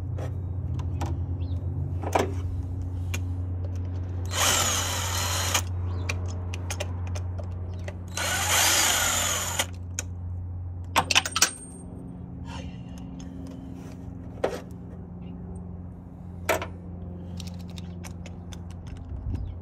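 Cordless drill running on the supercharger's bolts in two short bursts of about a second and a half each, its motor pitch sliding as it spins. Scattered clicks and clinks of metal tools come between the bursts.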